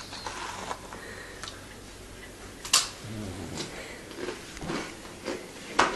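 A pug's snuffling noises, with a short low snort about three seconds in, among scattered small ticks and two sharp clicks, one near the middle and one at the end.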